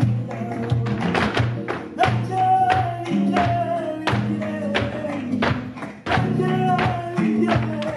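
Flamenco music for an alboreá: a voice sings long, wavering lines over guitar and a low accompaniment, with frequent sharp rhythmic strikes.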